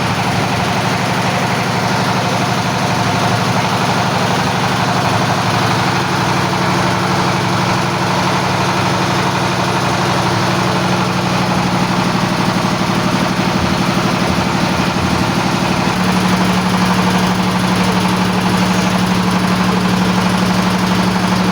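Engine of an oil-well drilling rig running steadily. About sixteen seconds in, its tone changes and it gets a little louder.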